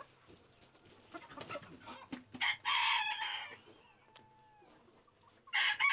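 Roosters crowing: one crow about two and a half seconds in lasting about a second, and another starting near the end, with quieter clucking between them.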